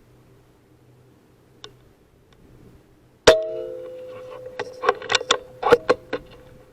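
An air rifle shot with a sharp crack and a metallic clang that rings on, followed by a quick run of sharp metallic clicks and clangs.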